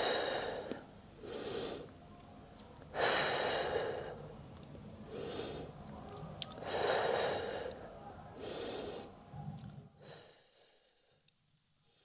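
A woman breathing audibly in slow, deliberate Pilates breaths: about three cycles of a shorter, softer breath followed by a longer, louder one, paced with lifting and lowering her knees in a short plank. The breathing fades away near the end.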